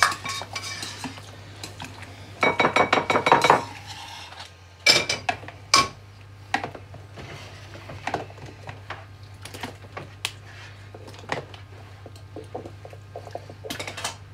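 Metal utensils clinking and scraping against a cooking pan as food is dished up: a run of quick scraping knocks lasting about a second, starting about two and a half seconds in, then sharp clinks around five seconds and scattered lighter clinks after. A steady low hum runs underneath.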